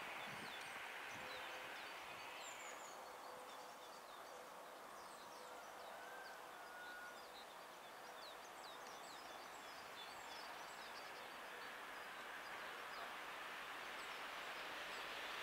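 Small birds chirping and twittering in short high notes, scattered throughout, over faint outdoor background noise. The background grows slightly louder near the end as a train approaches.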